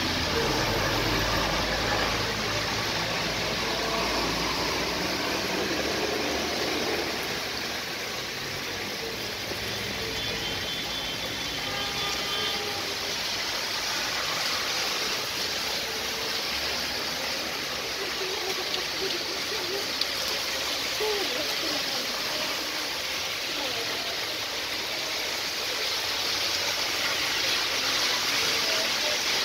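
Heavy rain falling steadily, with cars and a bus driving through the wet road and tyres hissing on the water. A vehicle engine's low rumble stands out for the first several seconds.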